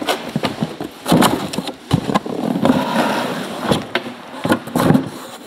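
Handling noise as large cardboard boxes are flipped and moved about: a run of irregular knocks, scrapes and rustles of cardboard, with some loud thumps toward the end.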